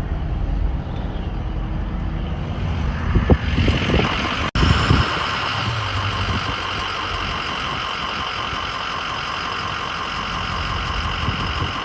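A Ford Power Stroke diesel pickup driving, heard from inside the cab: a steady engine and road drone, with a few knocks from bumps in the road a few seconds in and a brief dropout about four and a half seconds in.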